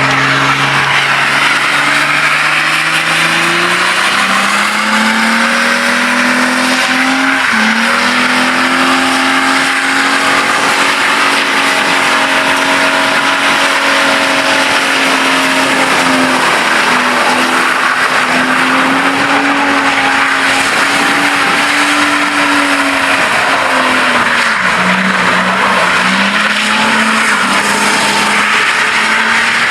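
Holden Commodore doing a skid, with its diff not yet welded. The engine revs climb over the first few seconds and are held high while the rear tyres spin and squeal, and the revs dip briefly near the end.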